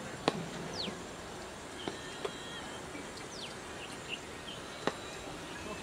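Open-air ambience: a steady hiss with a bird calling in short falling whistles a few times. A few sharp knocks, the loudest a fraction of a second in.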